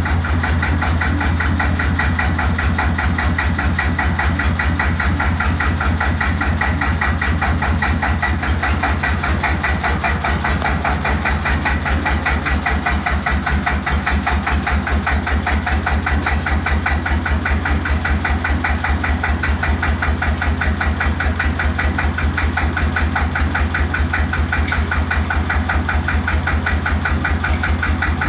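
Small old tractor engine idling steadily with a fast, even chugging beat.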